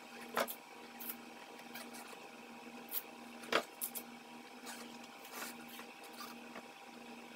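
Masking tape being pulled, torn and pressed onto a plastic bumper cover to tape down a ruler: short ripping and rubbing sounds, the sharpest about half a second in and again about three and a half seconds in. A steady low hum runs underneath.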